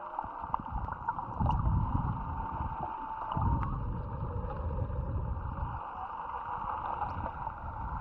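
Muffled underwater noise picked up by a submerged camera, with a low rumble that swells twice for a couple of seconds each time.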